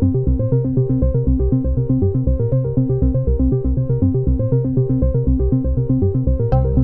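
Electronic background music: a quick run of synthesizer notes over a pulsing bass, with a sudden hit near the end after which the music grows fuller.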